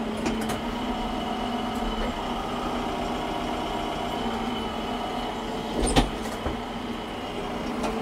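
TYM 754 tractor's diesel engine running steadily at idle, with one sharp knock about six seconds in.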